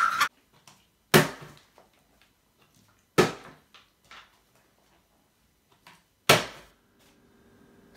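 Plastic water bottles being flipped and landing on a wooden tabletop: three sharp knocks, about a second, three seconds and six seconds in, each dying away quickly, with a few faint taps between them.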